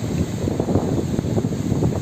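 Strong gusty wind buffeting the microphone: a loud, irregular low rumble.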